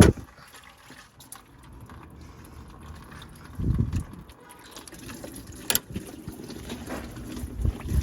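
Coolant trickling and splashing out of the 1999 Chevy Metro's radiator drain, with a dull knock about three and a half seconds in and a sharp click near six seconds.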